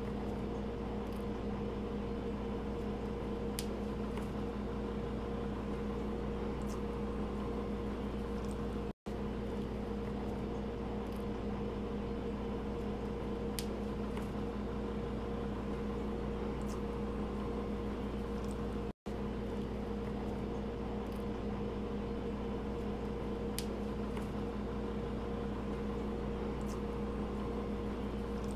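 Steady machine hum, with constant low and mid tones over a noise floor and a few faint ticks. The sound cuts out for an instant twice.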